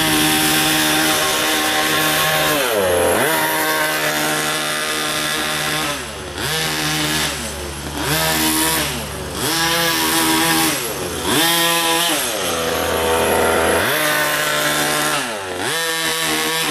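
Small two-stroke engine of a gas RC truck, freshly rebuilt with a 30.5 cc big bore kit, running on its break-in tank of extra-oil fuel. The throttle is blipped over and over, the revs climbing and falling back about every two to three seconds.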